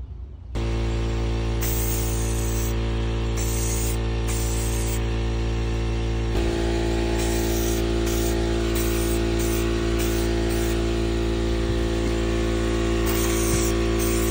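Background music with sustained chords, shifting about six seconds in. Over it come short, irregular hisses from an aerosol spray-paint can being sprayed in bursts.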